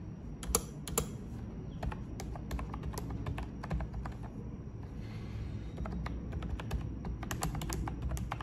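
Typing on an Ajazz compact keyboard with round, typewriter-style keycaps: a quick, irregular run of key clicks, with two louder clacks about half a second and a second in.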